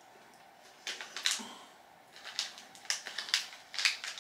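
Packet of popping chocolate being handled, making a few sharp, irregular crackles and clicks.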